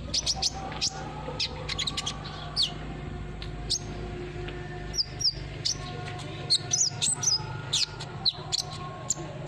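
Sunbird (kolibri ninja) song: a rapid string of high, thin chirps and quick down-slurred notes in irregular bursts. A steady low hum runs beneath.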